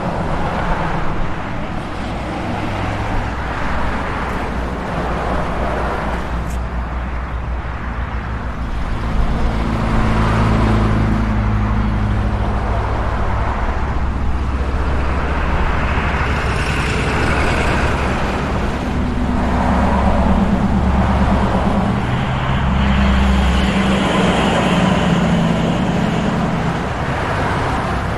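Medium street traffic driving by: cars and SUVs passing one after another over a steady low rumble of engines and tyres, with heavy trucks such as dump trucks among them. Louder passes swell up around a third of the way in and again over the second half.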